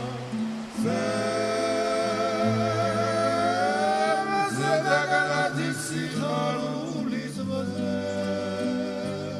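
Background music: a singing voice carries a slow melody of long held, gliding notes over sustained low notes that step from pitch to pitch. The voice enters about a second in.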